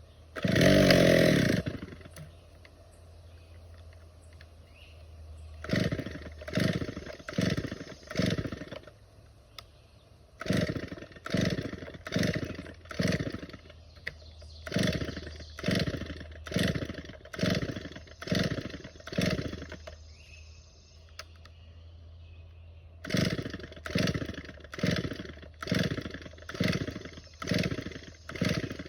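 Older two-stroke chainsaw idling unevenly, given one rev about a second in and then runs of quick throttle blips, about two a second, with short pauses between the runs. The saw is running poorly after a new spark plug and carburettor cleaning, still in need of tuning.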